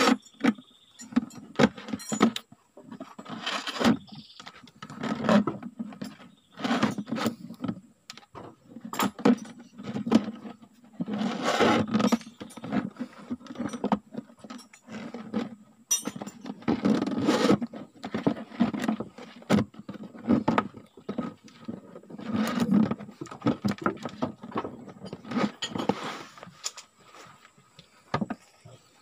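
Irregular scraping, rustling and knocking as a plastic jerrycan is handled and cord is threaded through holes to lash its cut flap shut, the can shifting against wooden boat planks.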